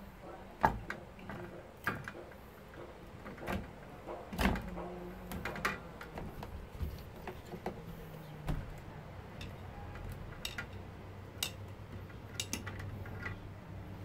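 Irregular clicks and knocks from wires and hardware being handled and fastened at a metal breaker enclosure and electric sub-meter, with a few louder knocks in the first half. A faint low hum comes in during the second half.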